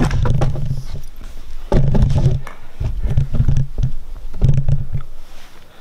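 Siberian husky giving low, rough growly grumbles in about four short bursts while being brushed, with scuffling and knocks close to the microphone.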